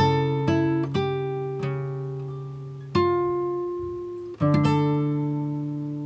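Background music: a plucked string instrument, guitar-like, playing slow notes that ring out and fade between plucks.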